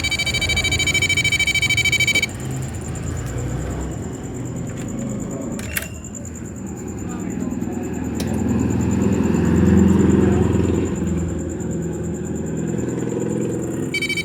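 A PC motherboard's beeper sounding a continuous high beep that cuts off about two seconds in and comes back near the end. In between there is low rumbling handling noise and a sharp click about six seconds in, as the RAM is pulled from its slot. The board keeps beeping continuously with no display, with or without RAM, the no-display fault this board has.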